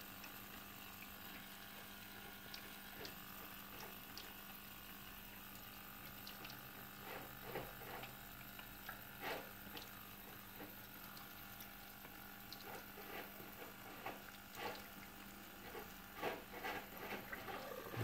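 Neff dishwasher filling with water: a faint steady run of water into its plastic side water tank with a low hum, and scattered small ticks and drips that come more often in the second half.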